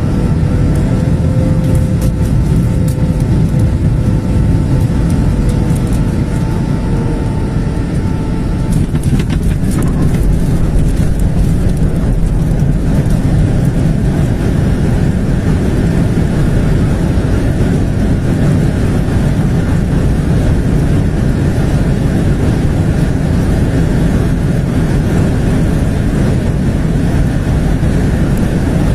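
Airliner rolling out on the runway just after touchdown: a loud, steady rumble, with a few faint whining tones that sag slightly and fade out about eight seconds in.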